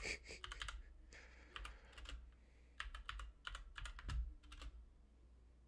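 Typing on a computer keyboard: several quick runs of key clicks with short pauses between them.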